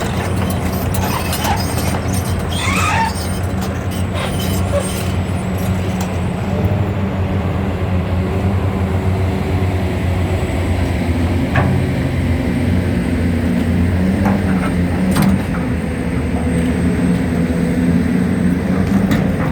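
Large diesel engine of a Hitachi 870 excavator running steadily under load, its note shifting about eleven seconds in, with scattered sharp clicks and knocks.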